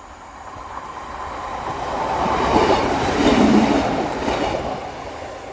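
Train passing close by on the rails, growing louder to a peak about three seconds in and then fading, with the rumble and clatter of wheels on track.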